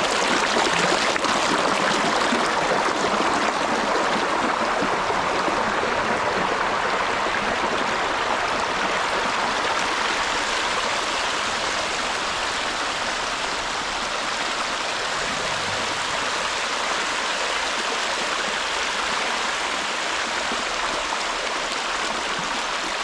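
A large rocky stream rushing over rocks: a steady, loud wash of running water.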